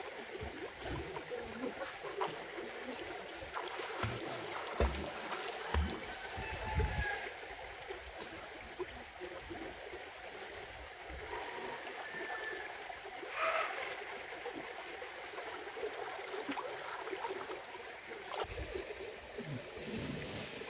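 Water running steadily, like a small stream or inflow at a natural pond, with a few soft thumps and splashes.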